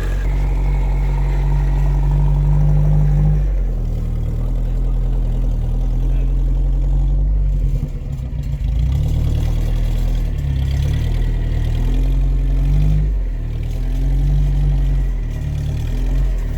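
Off-road vehicle engine running hard under load, its revs rising and falling in steps, while straining to pull a stuck SUV free by winch and tow line.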